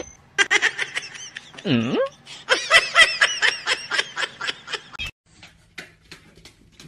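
A person laughing in quick, breathy bursts for about five seconds, then breaking off abruptly, leaving only a few faint clicks.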